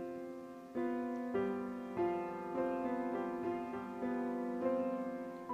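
Background instrumental music: slow, held keyboard notes, with a new note or chord entering every second or so.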